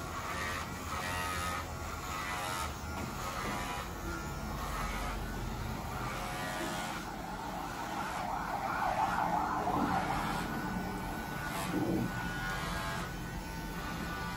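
Electric hair clipper running with a steady buzz as it is worked up the back of the head on a buzz cut. About halfway through, a wavering wail rises and falls several times behind it.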